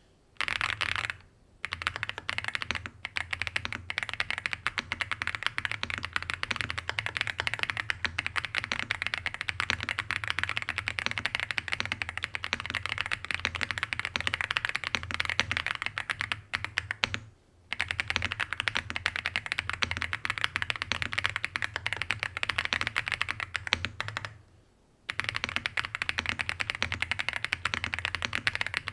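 Fast, continuous typing on an AULA F87 Pro mechanical keyboard with Haimu Sea Salt non-clicky switches and MDA-profile keycaps: a dense, clacky patter of keystrokes. The typing breaks off briefly three times, about a second in, about two-thirds of the way through and again near the end.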